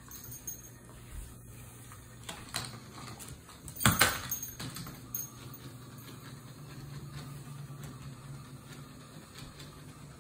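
Small motor of a battery-powered toy hamster whirring steadily as it moves across a hardwood floor, rising slightly in pitch about two-thirds of the way in. Scattered clicks and knocks over it, the loudest a sharp knock about four seconds in.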